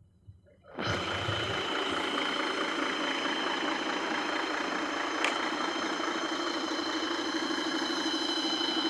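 Heavy diesel engine of the log-loading machinery cutting in abruptly about a second in, then running steadily with a pulsing low hum and a high whine over it. A single sharp click about five seconds in.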